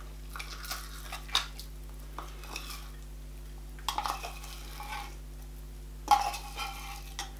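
Metal spoon scraping wet dog food out of a tin can, in about four short bouts of scraping and clinking against the metal.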